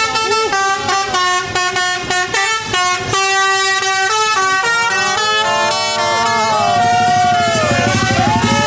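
Bus 'telolet basuri' melodic air horn playing a tune. It starts with quick stepped notes, then from about halfway switches to swooping notes that rise and fall. A bus's diesel engine runs louder underneath in the second half.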